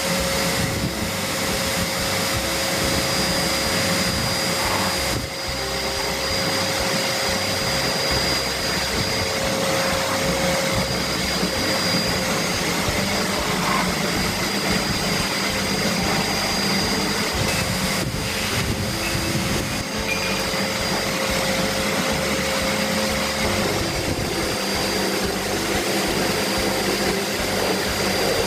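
Eureka Forbes 20-litre wet-and-dry canister vacuum cleaner running steadily at full speed, its motor giving a constant whine over the rush of suction through a long extension wand. A couple of light knocks sound about two-thirds of the way through.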